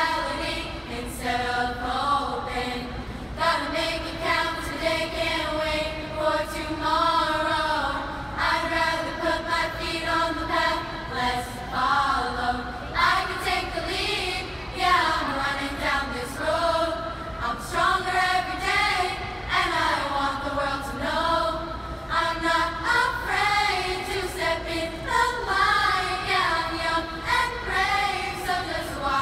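Girls' youth chorus singing together, a sustained melodic song with the voices rising and falling in pitch.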